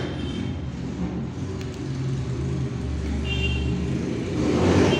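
A steady low mechanical rumble, like a motor running, swelling into a louder rush near the end, with a few faint ticks.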